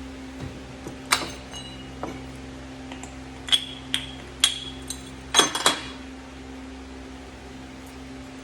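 Metal hand tools and engine parts clinking and knocking against each other: a string of sharp metallic clinks, several with a short ringing tail, with a quick group of three about five and a half seconds in. A steady low shop hum runs underneath.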